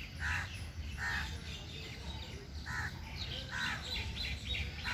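Crows cawing: several short, harsh calls spaced about a second apart, with smaller birds chirping in the second half and a low rumble underneath.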